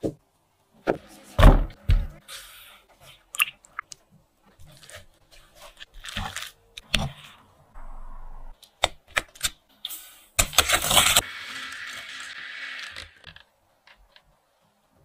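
Kitchen handling sounds: two heavy knocks about one and a half seconds in and scattered sharp clicks, then about three seconds of rustling past the two-thirds mark.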